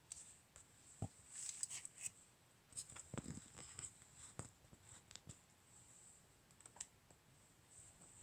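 Faint, irregular clicks and brief rustles from fingers handling a phone while it films, over a faint steady high hiss.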